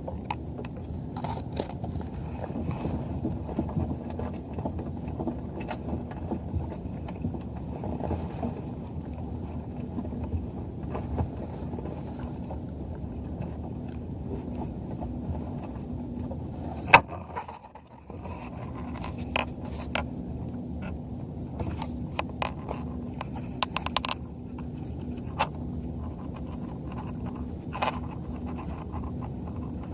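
Muffled steady rumble of wind and water on a kayak-mounted camera, with scattered small clicks and knocks. One sharp knock comes about seventeen seconds in, and the rumble drops out for about a second after it.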